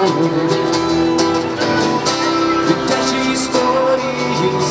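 A street musician strumming an acoustic guitar and singing into a microphone through a small amplifier.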